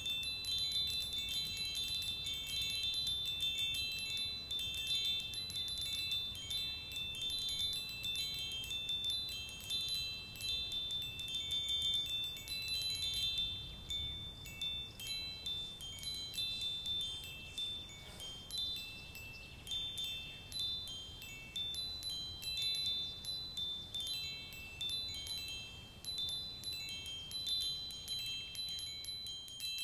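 Chimes ringing continuously: many high, overlapping notes tinkling at random, over a faint low rumble.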